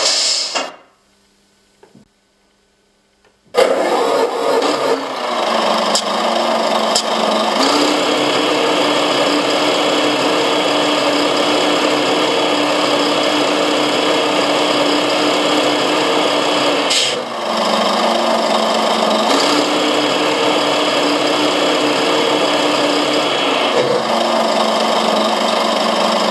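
Servonaut SM7 RC-truck sound module playing a simulated truck engine through a small loudspeaker. After a near-silent pause, the engine sound starts abruptly about three and a half seconds in and runs steadily, its pitch stepping up and down several times as the simulated revs change.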